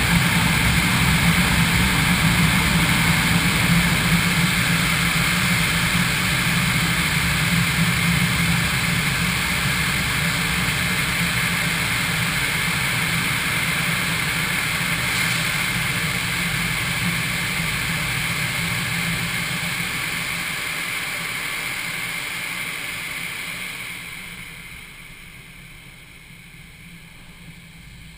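Steady roar of a touchless car wash's air-dryer blowers, a low hum under a broad rushing hiss, fading out about 24 seconds in as the car pulls clear of the bay.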